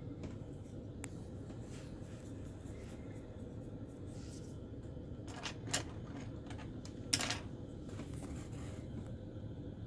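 Low steady room hum with a faint steady tone, broken by a few brief light clicks and rustles: one about a second in, a couple at about five and a half seconds, and the loudest cluster at about seven seconds.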